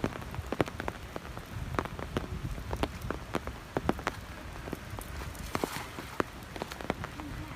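Rain falling, with many sharp single drops hitting close by at irregular intervals over a steady hiss.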